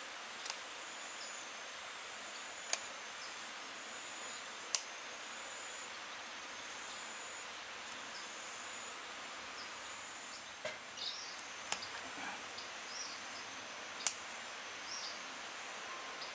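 Sharp snips of bonsai pruning shears cutting ficus twigs, five or so single clicks a couple of seconds apart, over a steady outdoor hiss with faint high chirps.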